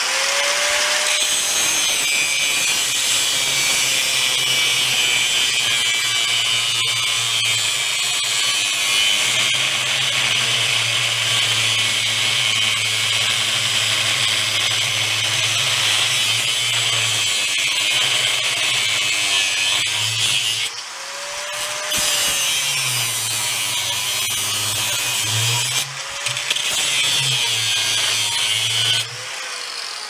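Angle grinder with an abrasive cutoff wheel cutting through a steel axle rod, a steady high grinding sound. The cut breaks off twice, about two-thirds of the way in and again a few seconds later, and each time the grinder spins back up with a rising whine. It stops shortly before the end, once the piece is cut off.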